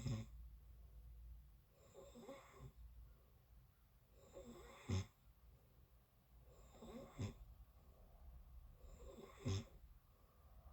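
A sleeping person snoring faintly, five snores about two and a half seconds apart, each ending in a brief low catch.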